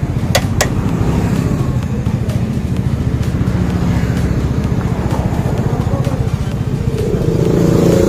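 An engine idling steadily with a rapid low throb, and two sharp metal clicks about half a second in from a spanner at the motorcycle's rear axle.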